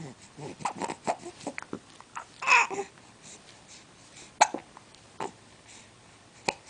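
Repeated hiccups, short sharp catches of breath. In the first three seconds they come mixed with small vocal sounds, the loudest about two and a half seconds in; after that come three single hiccups roughly a second apart.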